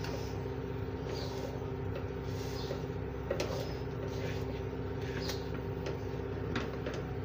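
Wooden spoon stirring and scraping a dry, crumbly flour-and-nut mixture around an aluminium pan, a soft scrape every second or so, over a steady background hum.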